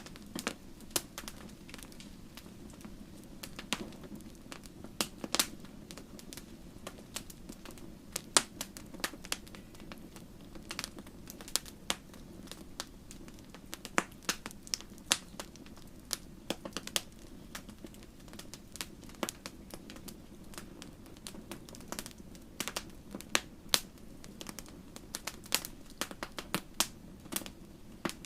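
Wood fire crackling in a fireplace: irregular sharp pops and snaps, several a second at times, over a steady low rush of the flames.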